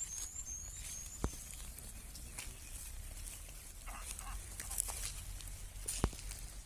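Outdoor rural ambience with a steady low rumble. A small bird chirps a quick run of high notes in the first second or so, with scattered rustling and two sharp clicks, one about a second in and one near the end.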